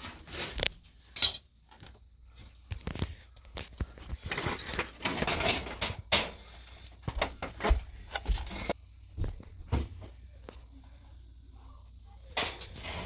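Clicks, knocks and rattles of hard plastic and metal washing-machine parts being handled and taken apart, with a stretch of scraping and rubbing about four to six seconds in.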